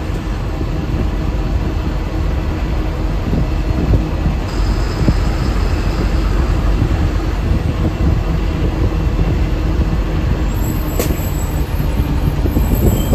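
MSRTC BS6 sleeper bus on the move: a steady rumble of engine and road noise.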